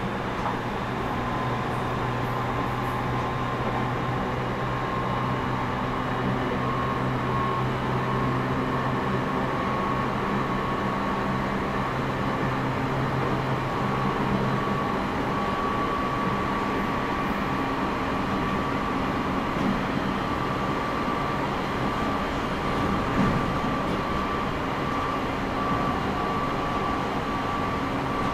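JR 209 series 2100-subseries electric train running between stations: a steady rolling rumble from its MT68 traction-motor bogies, with a thin whine that rises slowly in pitch. A low hum under the noise fades out about halfway through.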